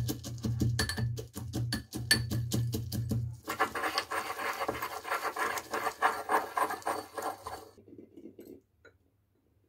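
Pestle pounding roasted peanuts in a small steel mortar, about five quick strikes a second; about three and a half seconds in it turns to grinding and scraping the crushed nuts, which fades out near the end.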